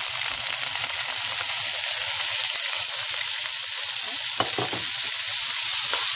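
Chopped leeks and carrots sizzling steadily as they fry in hot coconut oil in a pan. A spatula stirs them, giving a few light scrapes and clicks from about four seconds in.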